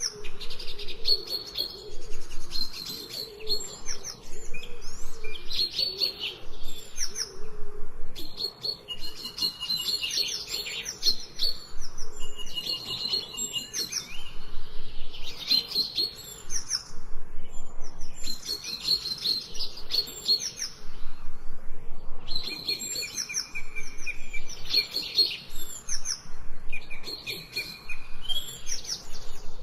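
Songbirds chirping and singing in short, high, repeated phrases every couple of seconds, several calls overlapping.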